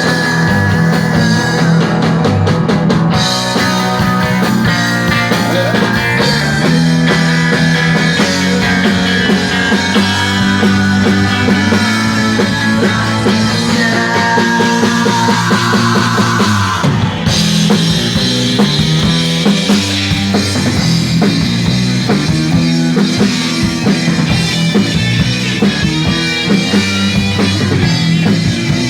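Rock band playing a song on drum kit and guitars, with a change to a new part a little past halfway through.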